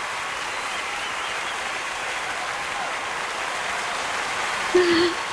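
Arena crowd applauding steadily for a figure skater taking her bow, with a short shout from the crowd near the end.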